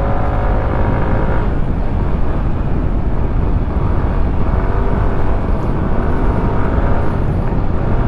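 Motorcycle engine running under way, heard from the bike with heavy wind rumble on the microphone. The engine note falls over the first second or so as the throttle eases, then rises again a little past the middle.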